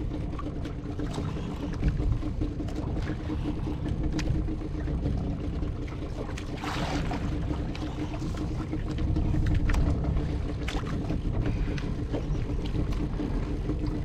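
Boat engine running with a steady, even hum under wind and sea noise, with scattered light clicks and a brief hiss about seven seconds in.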